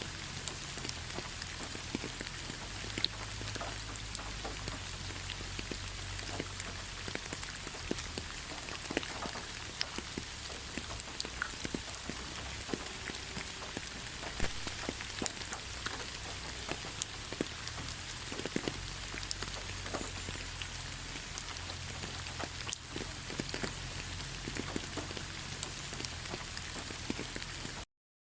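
Gentle rain falling steadily, with many individual drops ticking sharply on a surface. It cuts off to silence just before the end.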